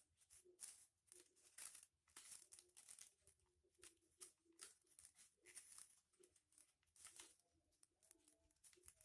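Foil-covered paper crinkling faintly in short, irregular bursts as it is folded and creased by hand.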